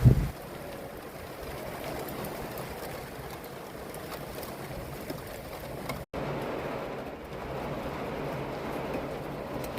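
Steady rain drumming on a van, an even wash of noise with faint scattered ticks. A loud low thump comes right at the start, and the sound drops out briefly about six seconds in.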